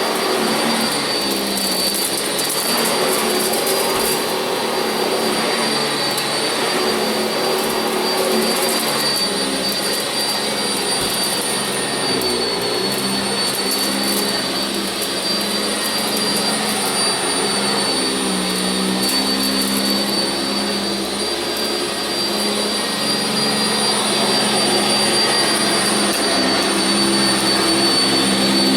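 Sanitaire SC679j upright vacuum cleaner running steadily on carpet: a constant rush of air with a high motor whine, and a lower hum that shifts slightly in pitch as it works.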